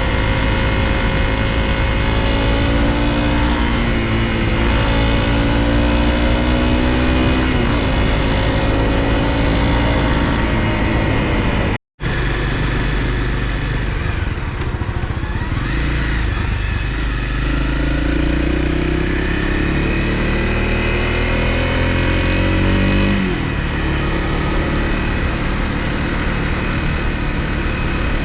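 Honda CRF250L single-cylinder four-stroke engine running while riding. Twice it climbs steadily in pitch and then drops sharply at a gear change. The sound cuts out completely for a split second about halfway through.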